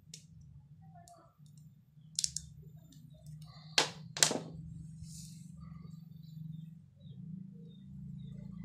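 Sharp metallic clicks of small parts being handled on a power-tool motor's shaft end: a few light clicks about two seconds in, then two louder clinks just before and just after four seconds in as a small steel washer comes off the shaft and is laid down. A low steady hum runs underneath.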